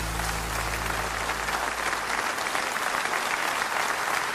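Audience applauding at the end of a song, with a low lingering note from the accompaniment dying away about two seconds in.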